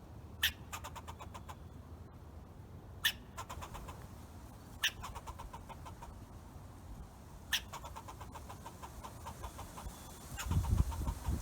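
Squirrel calling: four sharp chirps a few seconds apart, each trailing off into a fast stuttering chatter. A louder low rumble comes in near the end.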